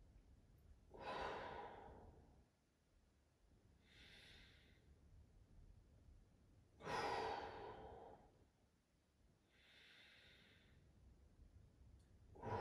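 A person's slow, deep breathing: two long exhales, about a second in and about seven seconds in, each starting suddenly and fading over a second or so. Softer hissing inhales come between them, around four and ten seconds in.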